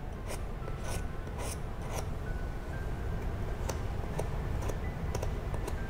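Utility knife blade scratching short strokes into hardened JB Weld KwikWood epoxy, keying the surface so the next layer bonds; about a dozen quick scrapes at uneven intervals.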